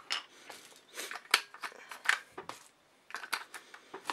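Irregular clicks and rattles of batteries being loaded into a handheld smartphone gimbal's battery compartment, handled by hand.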